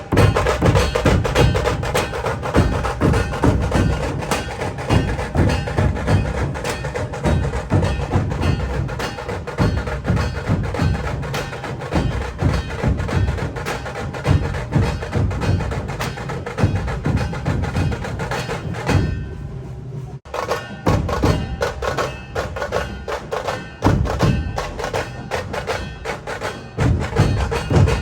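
Music with a fast, heavy percussion beat, thinning out briefly about two-thirds of the way through before the beat comes back in.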